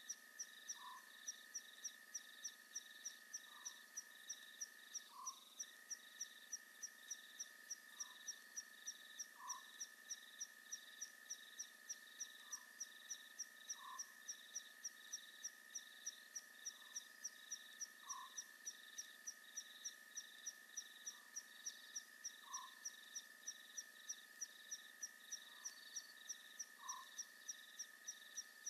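Faint night chorus of frogs and insects. A steady high drone runs under a fast, regular ticking of about three to four pulses a second, and a lower call comes in pairs about every four seconds.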